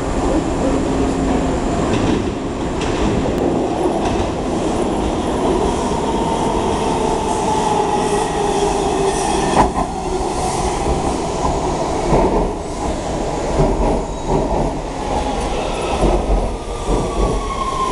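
Washington Metro Red Line train moving along the platform, its wheels rumbling and squealing on the rails. Near the end a motor whine falls slowly in pitch.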